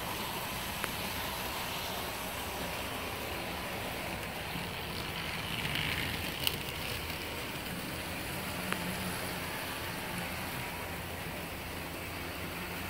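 Model train locomotives running on the layout's track: a steady whir of small motors and wheels on rail, with a few sharp clicks.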